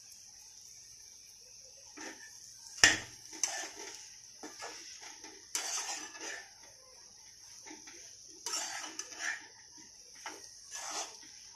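A spoon clanking and scraping in a kadhai while stirring a mashed-potato filling. It starts about two seconds in as irregular strokes, with one sharp clank about a second later.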